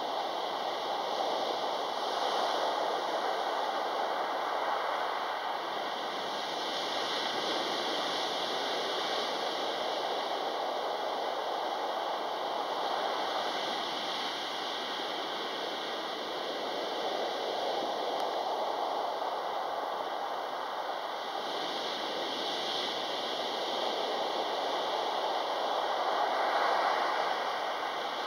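Sea waves breaking on the shore and washing up the beach: a steady surf noise that swells every four to five seconds as each wave comes in.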